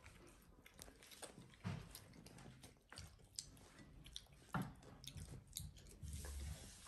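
Faint eating sounds: children chewing and picking at rice on their plates with their fingers, with scattered small clicks and taps and a soft low thump about six seconds in.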